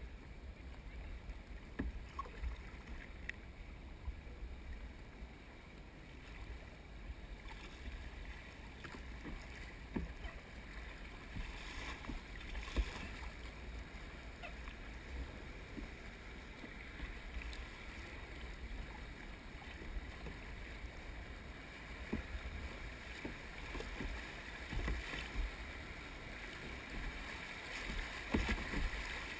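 Water rushing and splashing around a plastic sit-on-top kayak running shallow river riffles, with occasional knocks. The splashing grows louder near the end as the kayak enters rougher whitewater.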